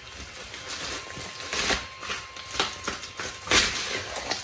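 Plastic bubble wrap crinkling and rustling as a package is handled and unwrapped, in irregular bursts, the loudest about three and a half seconds in.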